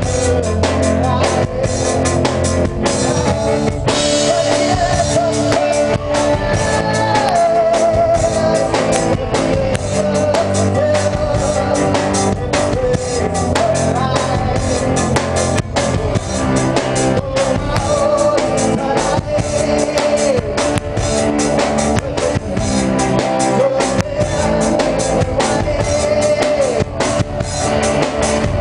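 A small rock band playing live: drum kit, electric guitar and electric keyboard, with a man singing a wavering melody over them.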